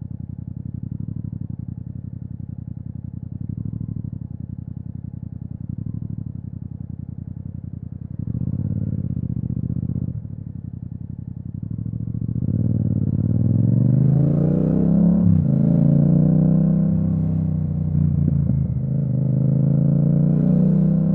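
Yamaha MT-07's parallel-twin engine through an Akrapovic exhaust, burbling at low revs in slow traffic. About twelve seconds in it accelerates, the note rising and getting louder, broken by two short dips as it shifts up.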